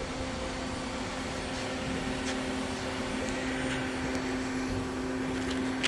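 Steady machine hum from a running CNC Swiss lathe, a low steady tone under an even hiss, with a few faint ticks.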